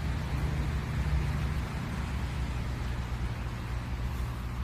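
Steady low rumble with a hiss over it, with no barking or other distinct sound standing out.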